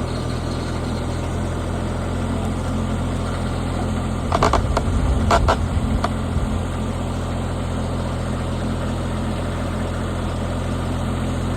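Rippa NDI665 mini skid steer's engine running steadily under load during a lift attempt with about 1,050 pounds on the forks. A few brief higher-pitched sounds come between about four and six seconds in, where it gets a little louder.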